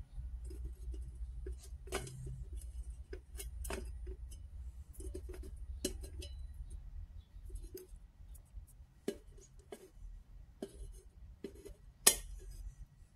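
Fingernails clicking and tapping on a scratched stainless-steel plate as head lice on it are picked at and pressed flat. The sharp clicks come irregularly, with one louder knock about twelve seconds in.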